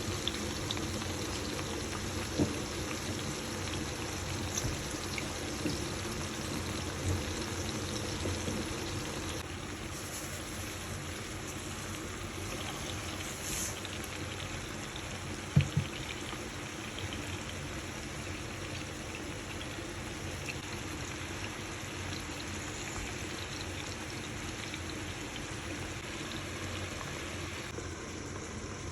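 Water bubbling steadily in a pot on the boil, with a sharp knock a couple of seconds in and a louder double knock about halfway.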